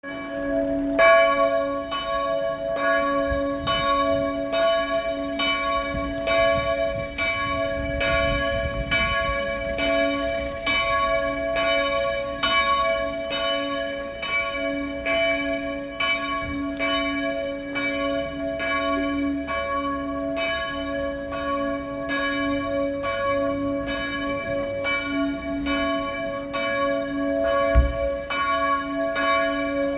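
Church bell ringing for Mass, struck about once a second, its hum lingering between strokes. A brief low thump near the end.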